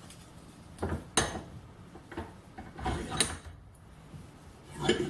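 Metal workshop parts handled at the vise: four short clunks and scrapes a second or two apart as jaw pads are set in the vise and a small chuck is fitted to the pin vise body.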